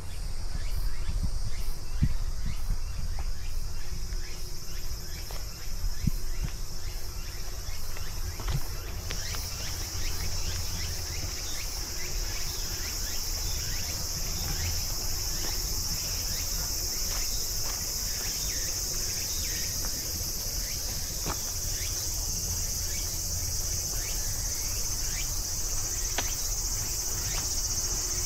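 A steady, high-pitched chorus of insects, growing louder about nine seconds in, over a low rumble with scattered faint clicks.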